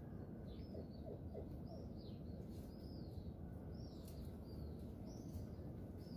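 Small birds chirping faintly, a string of short arched chirps every half second or so, over a steady low background rumble.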